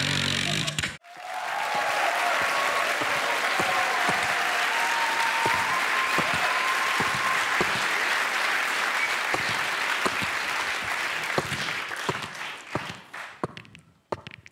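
A low buzzing vocal sound effect through a microphone cuts off sharply about a second in, followed by studio audience applause with some whistling. The applause thins to scattered claps and fades out near the end.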